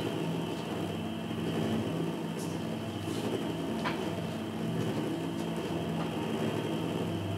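A steady low hum with a faint hiss underneath and a few faint ticks.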